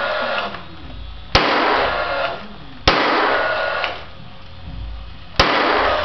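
Finish nail gun driving nails into a cedar birdhouse: three very loud sharp shots, about a second and a half in, at three seconds and near the end, each followed by about a second of rushing noise.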